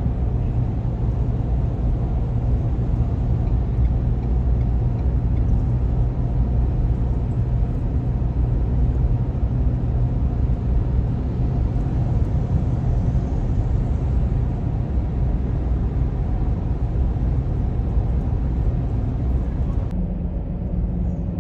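Steady low rumble of road and engine noise heard inside a moving car. About 20 seconds in, the higher hiss drops away and a low hum remains.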